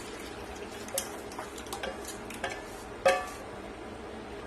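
A metal spoon clinking against a metal kadai about six times at uneven intervals, each clink ringing briefly, the loudest about three seconds in.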